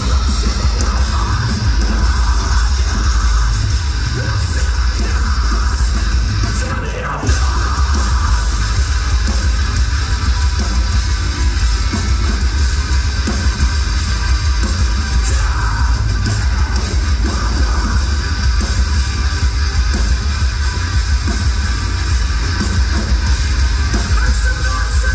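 Live metal band playing a heavy song: distorted electric guitars, bass and drum kit at full volume, with a short drop in the sound about seven seconds in before the full band comes back.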